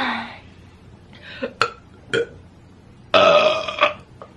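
A woman burping. One burp falls in pitch right at the start, a few brief small sounds follow, and a long, loud burp comes a little after three seconds in. The burps are wet.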